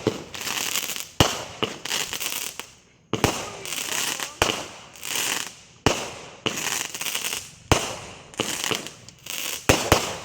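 200-gram consumer firework cakes firing a volley of shots: a sharp bang about every second or so, each followed by a crackling, hissing trail as the shell breaks.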